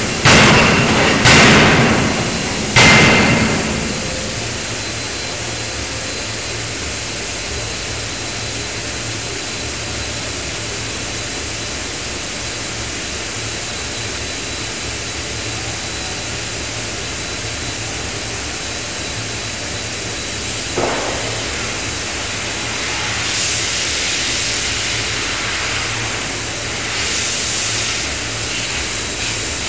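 5-ton electro-hydraulic die forging hammer striking hot steel in the die three times, about a second apart, each a sharp bang with a short ring. After that comes a steady hum and hiss from the hammer's hydraulic system, with a single knock about two-thirds of the way through and swells of hissing near the end.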